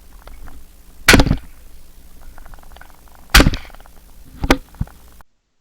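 Two loud shotgun shots at clay targets, a little over two seconds apart, followed by two fainter sharp knocks.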